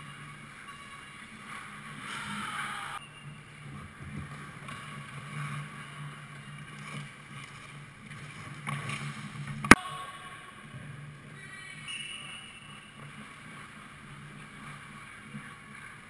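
Ice-rink ambience: a steady low hum with skates scraping on the ice, and one sharp crack about ten seconds in from a hockey puck being struck.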